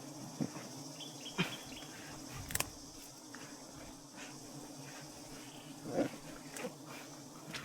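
Insects buzzing steadily, with a low hum and a high hiss, broken by several short knocks and rustles.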